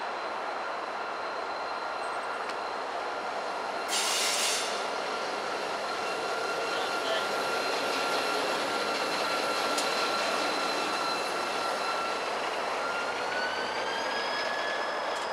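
CSX diesel locomotive rolling slowly past with a steady, high-pitched wheel squeal whose pitch rises near the end. A brief hiss about four seconds in.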